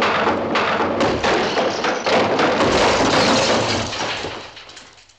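A long, loud crash and clatter of many things breaking and falling, made up of many sharp strikes. It dies away over the last second or so.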